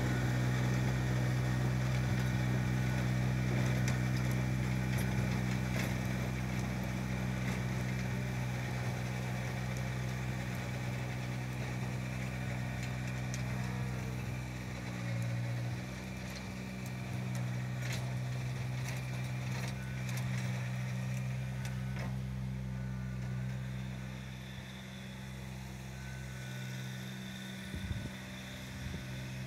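Kubota BX subcompact tractor's three-cylinder diesel engine running steadily while driving a rear PTO rotary tiller through loose soil, with a brief dip in pitch about halfway through as it takes load.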